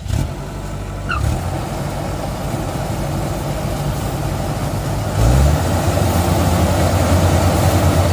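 Combine harvester engine running steadily, then revving up about five seconds in and holding at a louder, higher speed.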